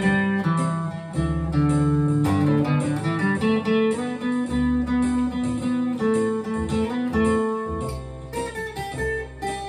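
Solo acoustic guitar played fingerstyle: a picked melody of held single notes over a moving bass line, with no voice.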